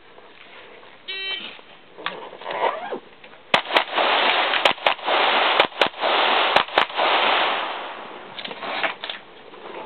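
A shot timer beeps about a second in, and a couple of seconds later a Glock 17 9mm pistol fires eight shots in four quick pairs.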